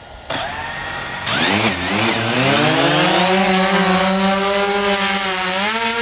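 DJI Phantom quadcopter's motors and propellers spinning up for takeoff. A buzzing whine swells about a second in and rises in pitch over the next couple of seconds, then holds steady as the drone climbs.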